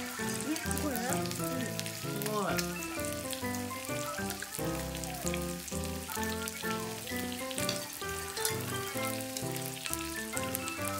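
Chicken yakitori skewers sizzling and crackling on an electric hot plate as they cook, with a melody of music playing over it.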